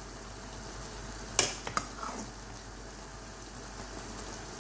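Soy-based marinade bubbling and sizzling in a pot around a whole chicken as the sauce is cooked down. About a second and a half in, one loud sharp click is followed quickly by a couple of smaller ones.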